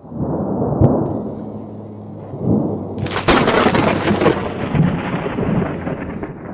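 Thunder: a rumble starts suddenly, then about three seconds in a close lightning strike gives a sharp crack, followed by a long rolling rumble that slowly fades.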